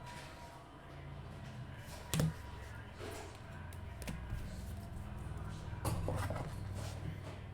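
Trading cards handled at a table: a few sharp clicks and taps, the loudest about two seconds in, with light rustling of cards over a low steady hum.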